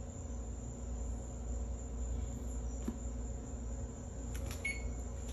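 Steady low hum with a faint high whine, and one short beep from the electric oven's keypad about four and a half seconds in as the lowered bake temperature is entered.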